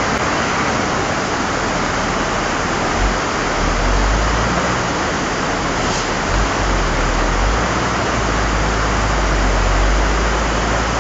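Steady rush of muddy floodwater running over a rocky road, with the low rumble of a heavy lorry's engine as it crawls through, the rumble coming in about three seconds in.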